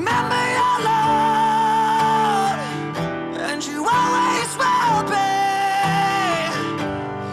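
Background song: acoustic guitar strumming under two long held sung notes with a wavering pitch, one near the start and one about halfway in.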